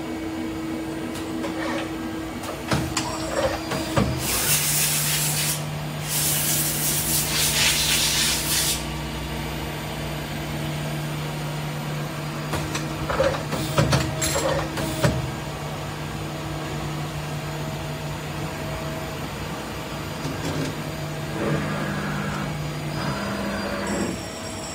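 Mazak SQT 100 M CNC lathe running with no workpiece: a steady machine hum sets in about four seconds in and shifts pitch near the end. Two long bursts of hissing come between about four and nine seconds in, and a few sharp clicks come about halfway.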